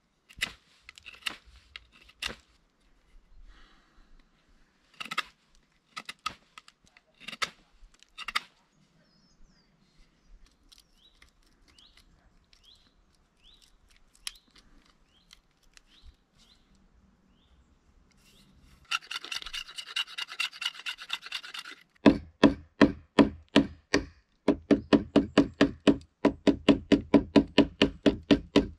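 Hand saw cutting wood: scattered knocks and scrapes at first, a short stretch of rasping about two-thirds in, then steady, even saw strokes about four a second.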